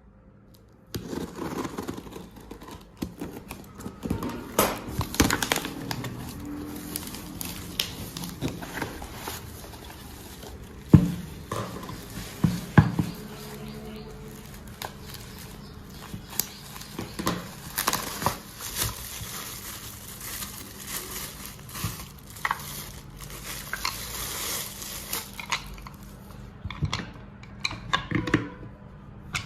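Household handling sounds: crinkling of packaging and light clattering of objects being moved about, with two sharper knocks near the middle and a faint steady hum underneath.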